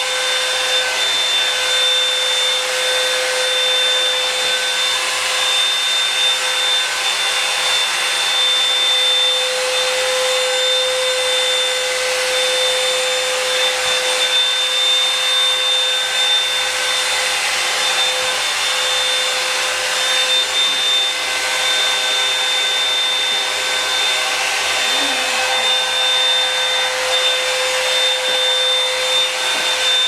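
Revlon One-Step Root Booster hot-air brush running steadily: a constant blowing noise with a high motor whine over it.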